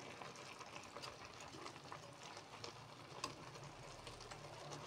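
Gulai, a coconut-milk curry with banana blossom and cassava leaves, simmering in a wok and stirred with a slotted metal ladle: faint bubbling with many small pops, and a light tap about three seconds in.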